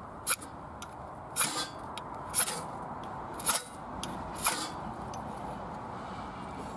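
Knife spine struck down a ferro rod (fire steel) to throw sparks into kindling in a wood stove's firebox: five short scrapes about a second apart.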